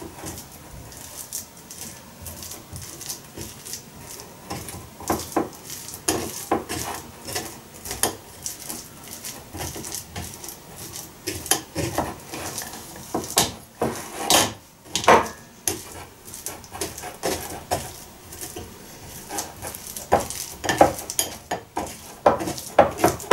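Metal spoon scraping and tapping against a fine mesh sieve in irregular strokes, pressing boiled adzuki beans through it to strip off the skins. The strokes grow louder about halfway through and again near the end.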